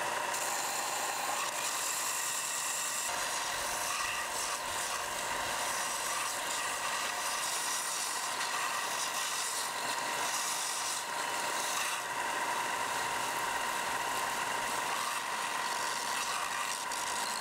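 Belt sander running with a wooden lure body pressed against the moving abrasive belt: a steady grinding hiss with a constant whine, as the wooden tail end and the dowel glued into it are sanded down to final shape.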